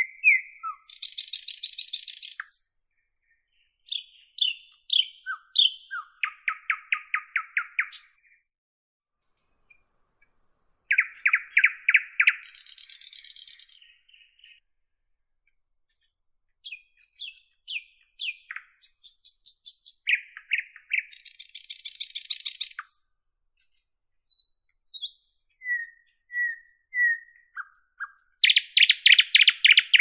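Nightingale singing in phrases a few seconds long. Each phrase mixes fast runs of repeated notes, rapid trills and short high whistles, with brief pauses between phrases.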